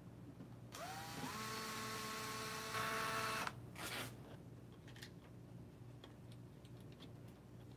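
Cordless drill/driver running for about three seconds: its motor whine rises as it spins up, holds steady, gets louder near the end, then cuts off. Faint clicks of handling follow.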